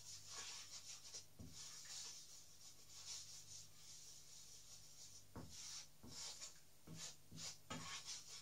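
Utensil scraping around a frying pan, stirring flour browning in hot oil for a roux, in faint repeated strokes with a few light knocks against the pan.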